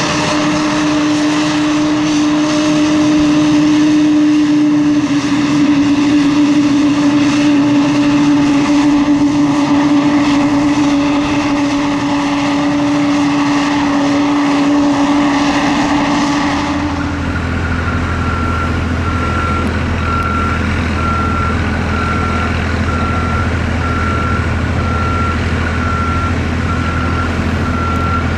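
Twin-turboprop Mitsubishi MU-2's Garrett TPE331 engines running as it taxis: a steady high drone that sinks slightly in pitch. About two-thirds of the way through it cuts to an aircraft de-icing truck: a low steady engine hum with a warning beeper sounding about once a second.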